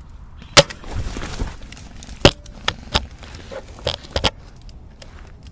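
A run of sharp clicks and knocks, the loudest about half a second in, with rustling after it. This is close handling of a Novritsch SSG24 airsoft sniper rifle by a shooter in a ghillie suit.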